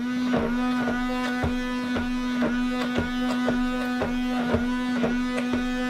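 Stick blender switched on and running with a steady whine while it is worked through thick hot-process soap batter at the mashed-potato stage. Short knocks come about two or three times a second as the blender head is pushed down through the batter and against the plastic tub.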